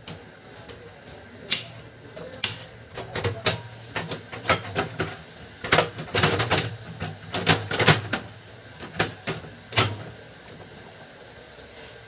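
Plastic clicks and knocks as the outer cover of a Canon LBP2900 laser printer is handled and fitted back into place, about a dozen sharp strokes, some in quick clusters.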